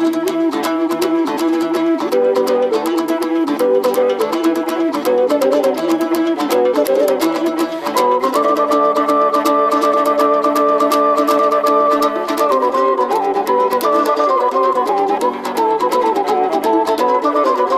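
Instrumental music led by a rapidly picked plucked string instrument with some bowed strings. About halfway through, a chord is held for several seconds before the fast picking returns.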